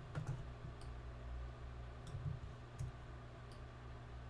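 A few faint, scattered clicks of a computer mouse and keyboard, made while keyframes are copied and pasted in editing software, over a low room hum.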